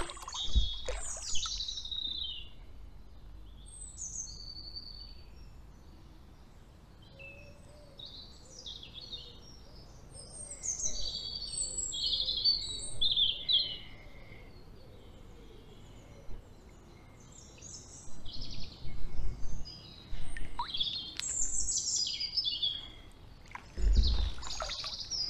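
Several small songbirds singing and calling: a busy mix of short chirps, trills and whistles, thickest near the start and again in the last few seconds.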